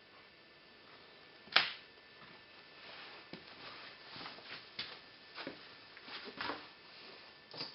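A sharp click about one and a half seconds in, then scattered light clicks and rustles, like small things being handled.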